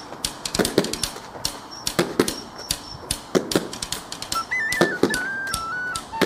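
An ash hurley striking a leather sliotar against a concrete wall: a quick, irregular run of sharp cracks and knocks from stick on ball and ball off the wall, a few per second. From about four seconds in, a high, flute-like melody of held notes plays over the strikes.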